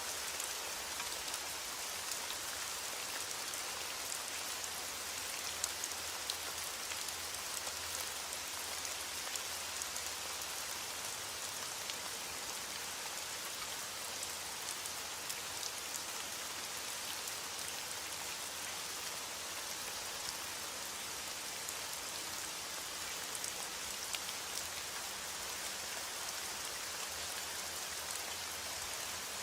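Steady rain falling, a continuous hiss with many small drop ticks pattering on a surface.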